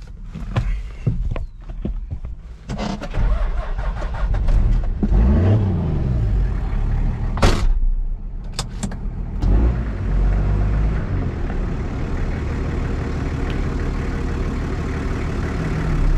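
Toyota truck's engine running as it is driven, heard from inside the cab: a rise and fall in engine pitch about five seconds in, a short loud hiss about seven seconds in, scattered clicks in the first half, then steady running.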